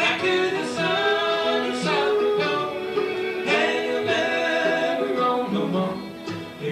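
Bluegrass band playing live: acoustic string instruments with a sung melody line of held notes.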